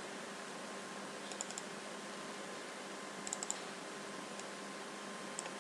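Faint clicks of a computer mouse: a few in quick succession about a second and a half in, another quick group about three seconds in, then single clicks, over a steady low hiss and hum.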